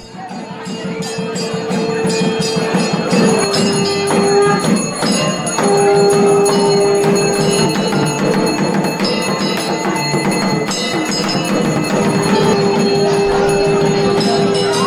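Festive music thick with ringing bells and fast, steady percussion, with long held notes sounding over it. It comes in suddenly, taking over from soft piano, and swells within the first couple of seconds.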